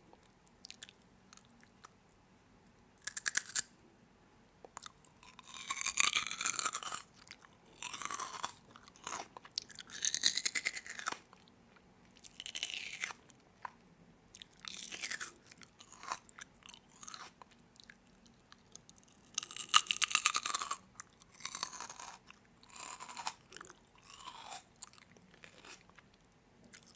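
Someone biting and chewing crunchy food close to the microphone, in crackly bursts every second or two with short pauses between.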